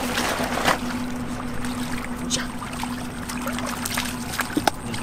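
Splashing and sloshing of shallow muddy water as fish thrash and hands grope through it, in many short irregular splashes. A steady low hum runs underneath.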